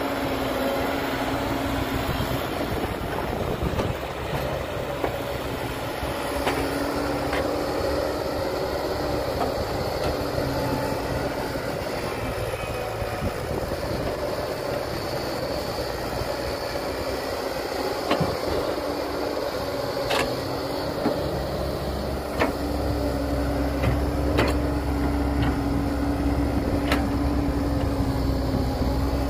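Heavy diesel engines of an excavator and dump truck running steadily, with a few sharp knocks in the second half; the low rumble gets heavier about two-thirds of the way through.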